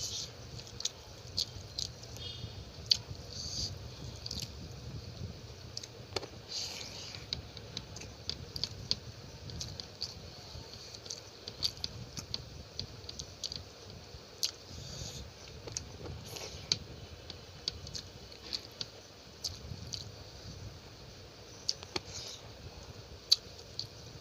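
A person chewing a mouthful of chicken curry and rice, with wet, squishy mouth sounds and frequent irregular clicks and smacks.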